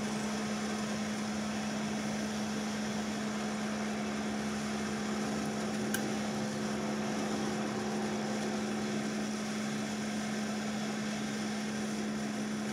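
Hot-air rework wand of a Hanmatek 2-in-1 station blowing steadily at high air flow, a constant whir and rush of air with a low hum, while it heats lead-free solder to free a surface-mount capacitor. One faint click about halfway through.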